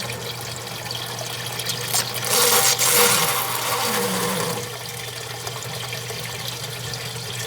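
Sump pump running in its ejector pit, a steady motor hum under rushing water, with a louder hissing, slurping surge from about two to four and a half seconds in: the 'straw sound' of the pump sucking air as the water level falls to the bottom of the pit.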